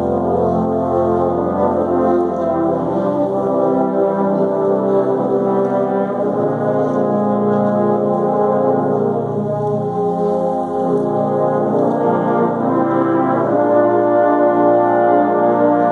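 Trombone choir playing sustained chords in several parts, the harmony changing every second or two and growing a little louder near the end, in a large church sanctuary.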